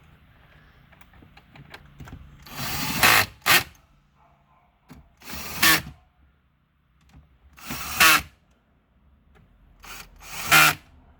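Power screwdriver driving screws home, four short runs that each build up and then stop sharply as the screw seats.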